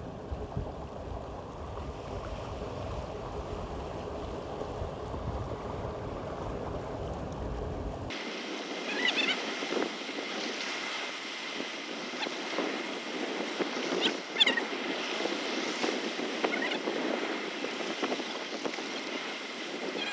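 Wind buffeting the microphone over running river water. About eight seconds in the sound changes abruptly to a brighter, even rush of water, with a few short sharp sounds.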